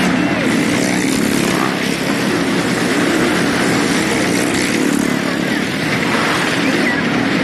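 A car engine and motorcycle engines running hard and steady as they circle the vertical wooden plank wall of a well-of-death pit.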